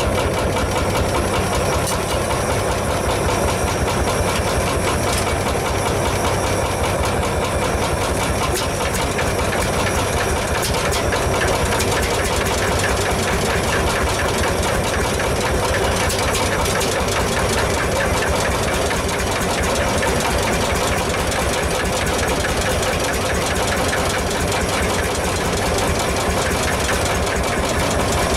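Single-cylinder two-stroke hot-bulb tractor engine idling steadily, with an even, rapid beat of firing strokes.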